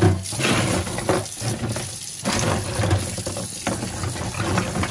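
Tap water running into a stainless steel sink while hands shift a pile of mussels, the shells knocking irregularly against each other and the steel.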